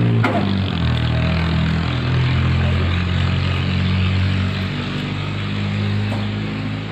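Vehicle engine idling steadily, a low even hum whose pitch shifts a little now and then.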